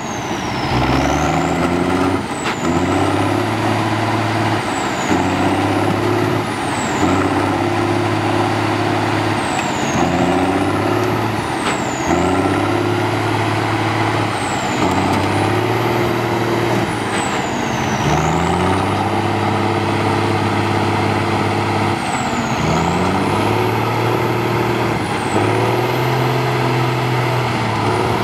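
Big mud truck's engine revving up and easing off again and again, about every two seconds, with a high whine rising and falling in step. The truck is hung up on a crushed car and is straining to drive over it.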